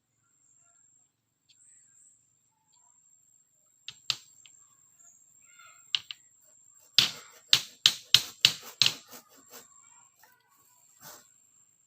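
Sharp knocks of a tool striking bamboo during the building of a bamboo fence: two single blows, then a quick run of about seven blows, roughly three a second, and one more near the end.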